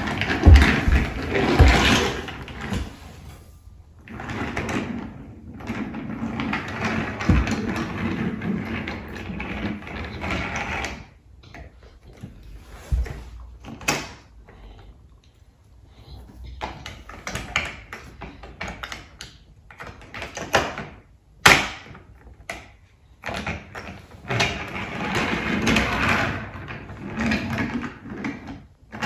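Plastic toy train set being played with: engines and carriages rattling and clattering on plastic track laid on a wooden floor, in stretches of a few seconds, with a few sharp clicks.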